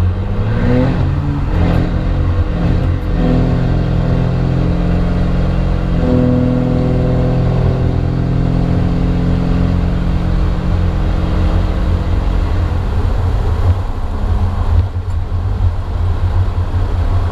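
Diesel pickup engine heard loud inside the cab through an exhaust stack standing in the bed, under hard acceleration. The note rises in pitch over the first second or so, holds a steady drone, then falls away about thirteen seconds in as the throttle eases.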